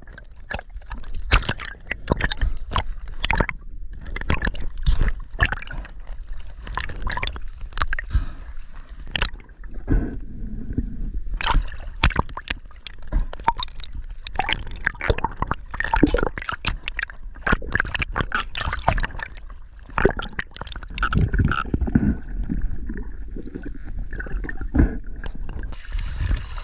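Sea water sloshing, gurgling and splashing around a camera moving in and out of the surface, heard partly underwater as a muffled low rumble, with many short irregular splashes.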